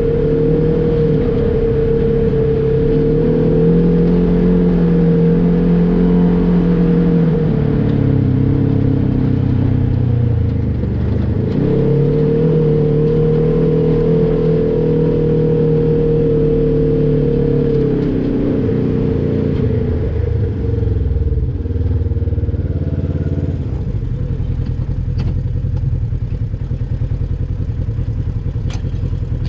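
Polaris RZR XP 1000 side-by-side's parallel-twin engine under throttle, its pitch held high for several seconds, dropping and climbing again, then settling to a lower running about three-quarters of the way through. A few sharp knocks come near the end.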